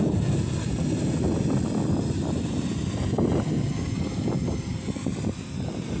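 Gusty wind buffeting the microphone: a loud, uneven low rumble that surges and dips throughout.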